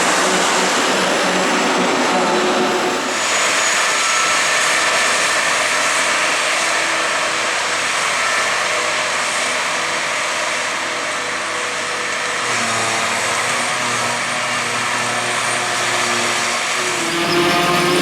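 Heavy farm machinery, a forage harvester and tractors chopping and hauling grass silage, running loud and steady. The sound shifts abruptly about three seconds in and again near the end, as the shot changes.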